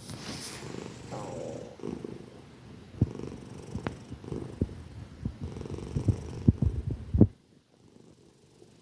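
Sleeping tortoiseshell cat snoring very loudly, a low continuous sound, with a series of sharp clicks from about three seconds in. The sound cuts off suddenly near the end.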